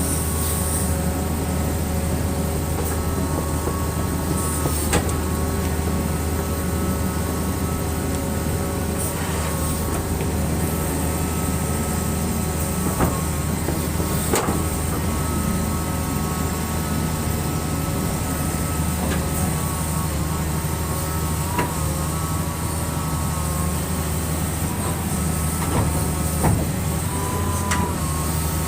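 Excavator's diesel engine running steadily, a low drone with a few steady higher tones over it, and now and then a short click or knock.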